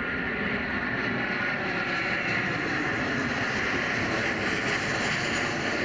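Boeing 737-700 jet airliner passing low overhead on landing approach with its gear down: a steady rush of CFM56-7B turbofan engine noise with a thin whine in it.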